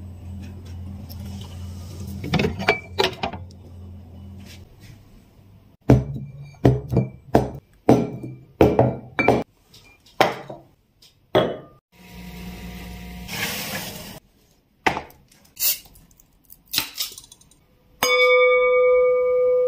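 Glass beer bottles clinking and knocking as they are handled and set down, with a low hum at first. A fizzing hiss of beer lasts about two seconds. Near the end, two beer glasses clink in a toast and one rings on for about two seconds.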